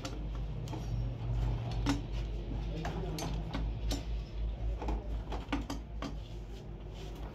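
Scattered metal clinks and knocks of tools and parts against the aluminium crankcase of a 200cc rickshaw engine being assembled, over a low steady hum.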